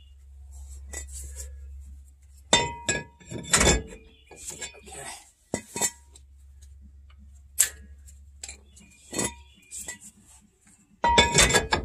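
Metal-on-metal clinks and knocks, some ringing briefly, from handling the brake rotor drum and parking brake hardware while the shoe adjustment is checked. There are a few loud clanks early on and a quick burst of louder clanking near the end.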